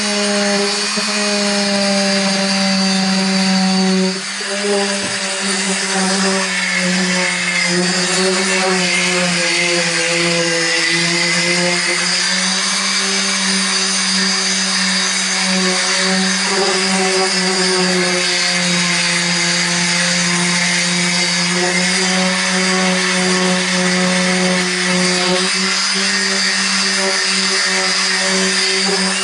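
Corded electric hand sander running steadily against the Toyota Coaster's painted roof, sanding the old paint back ahead of repainting. A loud, even hum whose pitch wavers slightly as it is worked across the roof, with a brief dip about four seconds in.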